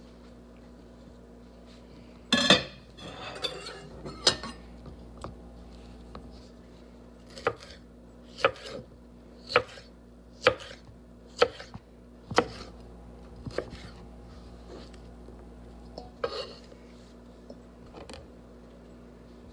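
Kitchen knife chopping vegetables on a wooden cutting board: single sharp knocks roughly a second apart, with a louder clatter of knocks about two seconds in.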